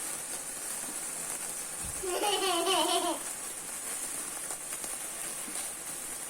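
A child's voice giving a drawn-out, wavering 'ooh' for about a second, a couple of seconds in, over a steady high hiss.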